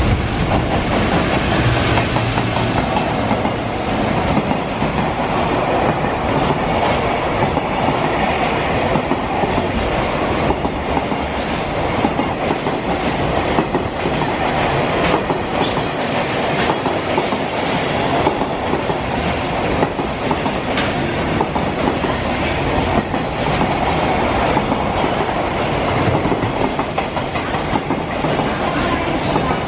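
Freight train hauled by a JR Freight EF210 electric locomotive rolling past, its long string of wagons making a steady rumble with repeated wheel clicks over rail joints.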